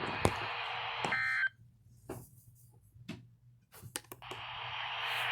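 Static hiss from the radio broadcasting the warning, with a short electronic beep about a second in. The signal then drops out for about three seconds, leaving a few faint clicks, before the hiss comes back near the end.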